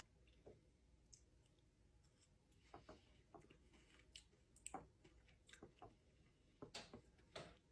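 Near silence: room tone with a few faint, scattered light clicks.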